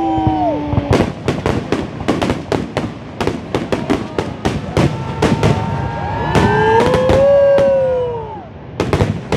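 Fireworks shells bursting in a rapid barrage of sharp bangs and crackles, several a second, with a short lull near the end before a last cluster of bangs. This is the closing barrage of the show.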